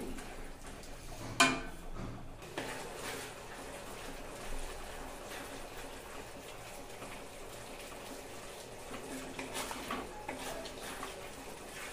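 Wooden spatula stirring a thin, watery gravy in a steel kadai: soft scraping and sloshing, with light clicks against the pan. One sharp knock about a second and a half in is the loudest sound.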